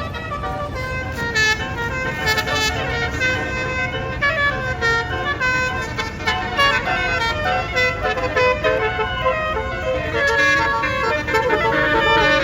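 Multi-note 'basuri' telolet bus horn playing a fast run of short notes that jump up and down in pitch like a tune, over the low rumble of a vehicle engine.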